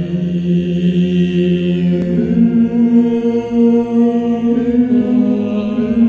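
A dark choir sings long, sustained chords on open vowels. About two seconds in, the chord changes as the lowest voices move up to a new held note.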